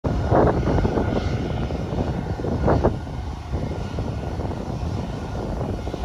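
Jet engines of a Solaseed Air Boeing 737-800 taxiing at low power, a steady low rumble that swells and eases a little.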